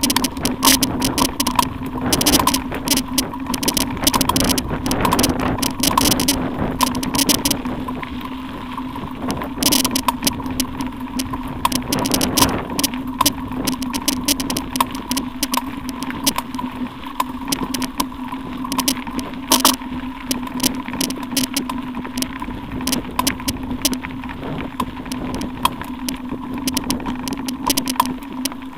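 Mountain bike riding over a rough gravel road, heard through a bike-mounted action camera: constant rattling and clattering from the bike and the camera mount, with many sharp knocks from stones and bumps over a steady drone and rumble of tyres on gravel.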